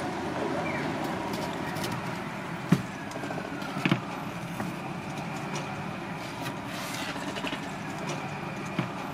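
Steady background hum of outdoor street ambience, with a few sharp knocks of a knife on a plastic cutting board as bananas are sliced.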